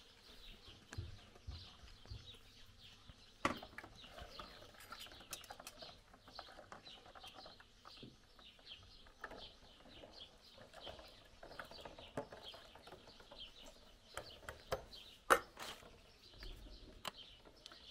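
Small birds chirping on and off, with a few sharp clicks: one about three and a half seconds in and the loudest near the end.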